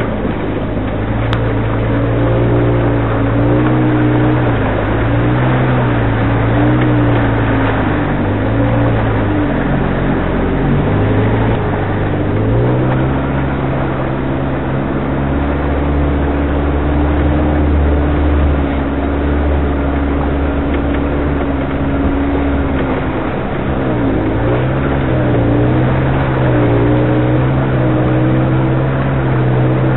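Engine of an off-road 4x4 running under load at crawling speed, its pitch rising and falling with the throttle through the first few seconds and again near the end, and holding steadier through the middle.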